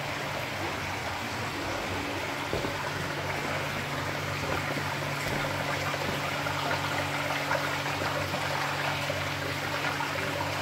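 Water running and splashing steadily into koi holding tanks, over a steady low hum of pumps.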